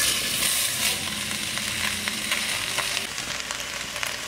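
Diced nopales poured into a hot, dry glass pot: a sizzle that starts suddenly as they land and carries on steadily, with a brief patter of pieces dropping in at first.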